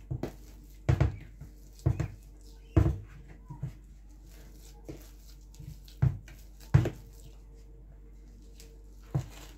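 A spoon and a hand working thick banana bread dough in a plastic mixing bowl: irregular soft thumps about once a second as the dough is pressed and turned, the loudest a little under seven seconds in, over a faint steady hum.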